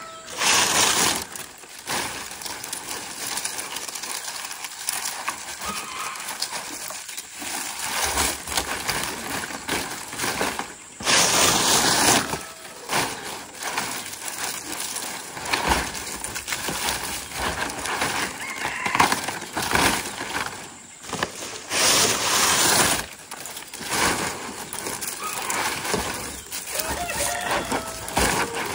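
Dry palm leaves rustling and crackling as bundles of them are handled, shaken and laid over a bamboo frame, in repeated loud bursts with quieter rustling between.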